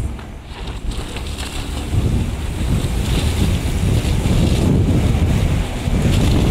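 Mercedes-Benz W124 driving on a snow-covered road, heard from the car: a loud low rumble of engine, tyres and wind noise on the microphone that grows louder about two seconds in.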